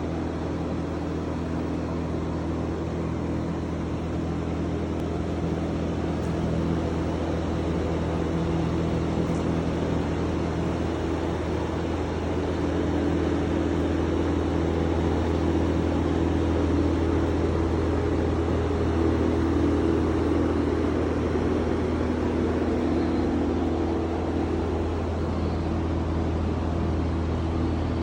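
A machine motor running steadily, a low hum with a noisy whir over it.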